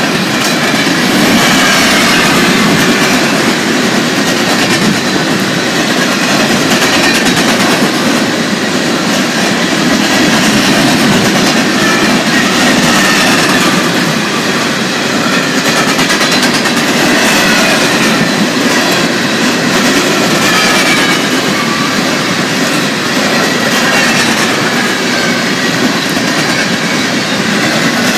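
Empty coal cars of a Union Pacific freight train rolling past at steady speed: a continuous, loud noise of steel wheels on rail, with faint wavering high squeals from the wheels.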